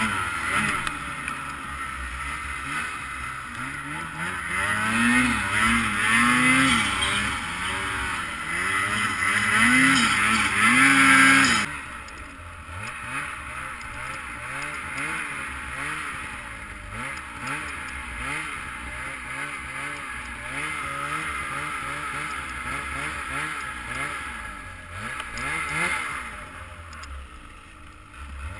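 The two-stroke engine of a 2022 Ski-Doo Freeride 850 Turbo snowmobile revs up and down with the throttle while riding through deep powder. About twelve seconds in it drops suddenly quieter, then keeps rising and falling in pitch.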